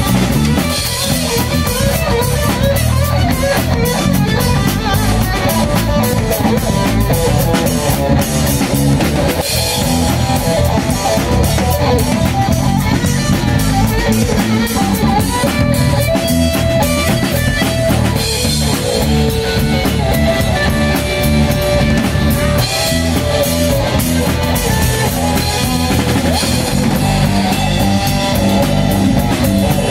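Live rock band playing: electric guitar, electric bass guitar and a Yamaha drum kit, played through amplifiers.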